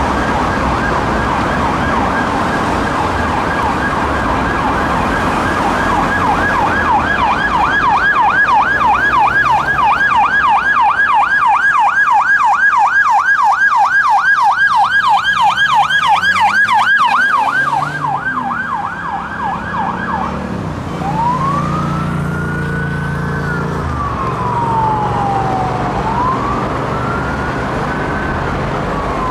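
UK police Peugeot 308 patrol car sirens: a fast yelp, rising and falling about four to five times a second, for most of the time, then a slow wail rising and falling over a few seconds near the end. A vehicle's engine passes close underneath around the change.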